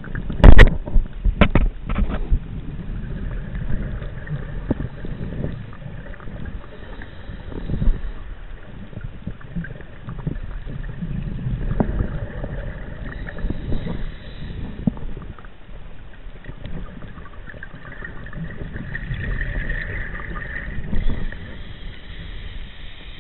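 Scuba diver breathing through a regulator, heard underwater through the chest camera's housing: a low rumble with a rush of exhaled bubbles every five or six seconds, and a few sharp knocks in the first two seconds.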